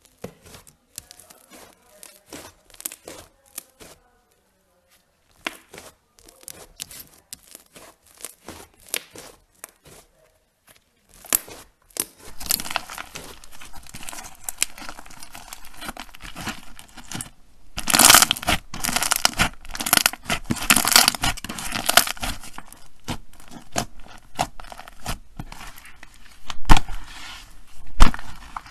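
Hands working slime: at first sparse, faint sticky clicks as a soft fluffy slime is pressed and poked, then from about twelve seconds in a clear slime packed with beads is stretched and folded, giving dense, louder crackling and popping that swells in bursts.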